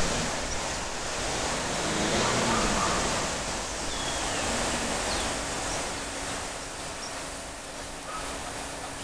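Steady outdoor noise wash, with a few faint short high chirps and a faint low steady hum coming in about halfway through.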